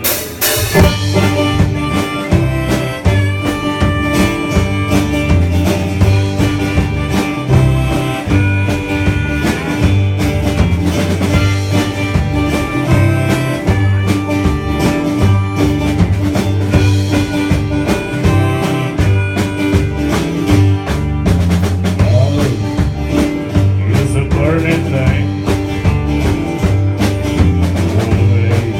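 Live country band playing an instrumental passage, a harmonica lead over drum kit, bass and guitar with a steady beat.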